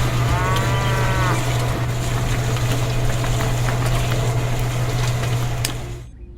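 A cow moos once in a short call that rises and falls in pitch, over a loud, steady low hum that cuts off suddenly near the end.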